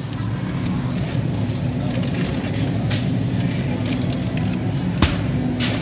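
Steady low machine hum of a supermarket's refrigerated freezer cases and store ventilation, with faint rustles and a sharp click about five seconds in.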